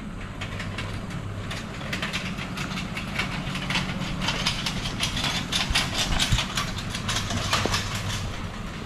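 A steady low engine hum with dense, irregular clicking and rattling over it, building up after the first second or two and loudest past the middle.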